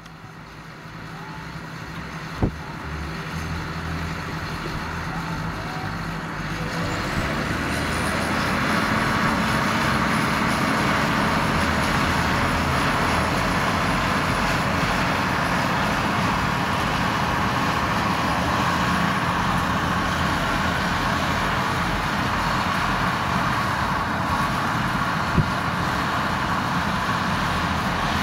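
John Deere 7530 tractor's six-cylinder diesel engine running steadily as the tractor drives across the field. It grows louder over the first several seconds, then holds even. There are two short clicks, one a couple of seconds in and one near the end.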